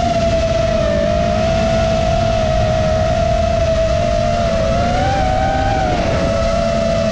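FPV quadcopter's four brushless motors (EMAX 2207 1700KV on 6S) whining at a steady pitch, which rises briefly about five seconds in and settles back, over the rush of wind across the onboard camera's microphone.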